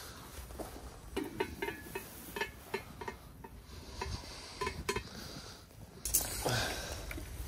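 Light metallic clinks and knocks of a pizza stone's chrome carrier handles being handled, a dozen or so over a few seconds. About six seconds in there is a louder rush of noise lasting about a second.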